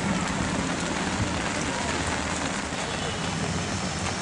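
Heavy monsoon rain pouring onto a flooded road and parked vehicles, a dense steady hiss, with a low steady hum underneath.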